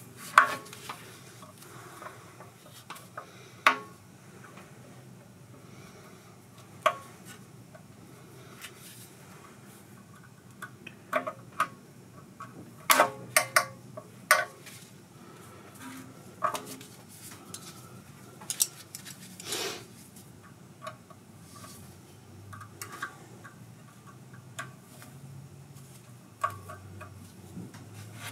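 Scattered metallic clinks, clicks and knocks of hand tools and small parts being handled at irregular intervals, with a cluster of them about halfway through, during work on fitting a fuel hose.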